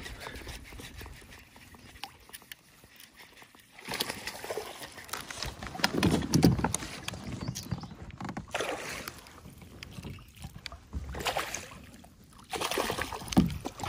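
Water splashing and sloshing around a kayak, with irregular knocks and rattles of gear and paddle being handled against the hull.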